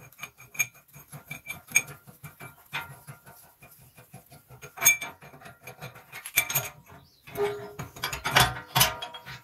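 Steel parts of a bush press tool clicking and clinking as its cups and nut are turned along the threaded rod by hand, with a few sharper metal knocks and a louder clatter near the end.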